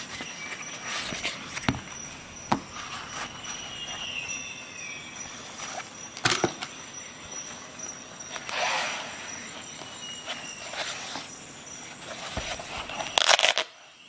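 Handling noise from multi-tools and a nylon belt sheath: a few sharp clicks and taps, and scratchy rustling bursts. The loudest burst comes near the end, as the sheath's hook-and-loop flap is worked.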